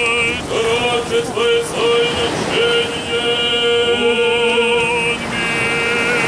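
Orthodox liturgical chant sung during the Epiphany blessing of the waters: voices holding long notes with a wide vibrato, with a few shorter sung phrases in the first three seconds.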